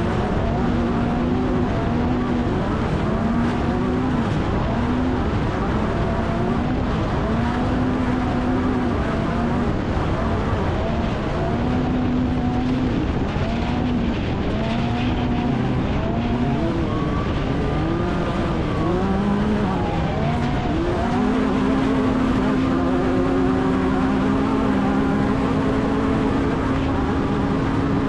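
Onboard sound of an off-road race vehicle at speed: the engine's revs climb and drop again and again, then hold steady for the last several seconds, over a constant rushing noise.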